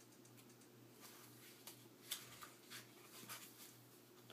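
Near silence with faint paper rustles and soft taps: a toddler handling and turning the pages of a picture book, a few short scrapes from about a second and a half in.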